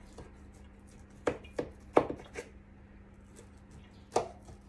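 Knife scoring a tray of pressed banana-and-oat mixture into bars: a handful of sharp knocks and scrapes as the blade presses through the mixture to the paper-lined baking tray, most of them bunched together early, one more near the end.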